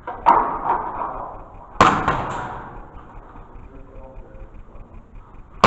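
Airsoft gun shots: three sharp cracks, the loudest a little under two seconds in and another at the end, each echoing through the bare concrete rooms.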